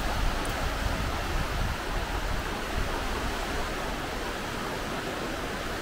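Steady rushing of fast-flowing water, with a low rumble underneath.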